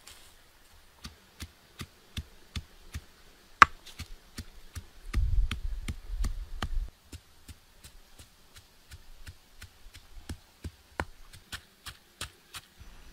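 Pestle pounding in a stone mortar: a steady run of sharp knocks, about two to three a second. A low rumble rises under the knocks for a couple of seconds near the middle.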